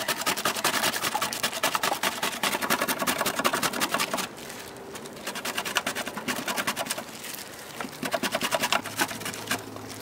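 Raw green banana being sliced on the blade of a stainless-steel box grater: rapid rasping strokes in several runs, with short pauses about four seconds in and again past the middle.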